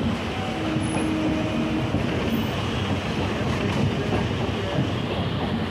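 Passenger train running along the rails, heard from the moving coach: a steady rumble and rattle of wheels on track, with a faint brief whine about half a second in.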